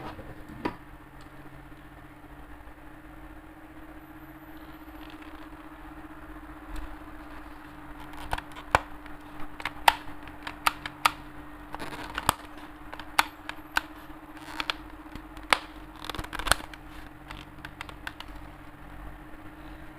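Irregular sharp plastic clicks and knocks from a toy M16-style airsoft rifle being handled, about a dozen between roughly eight and seventeen seconds in, over a steady low hum.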